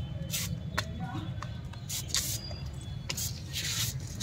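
Aerosol veterinary wound spray (Topicure) hissing in several short bursts through a thin extension tube as it is sprayed onto a calf's navel wound, over a steady low hum.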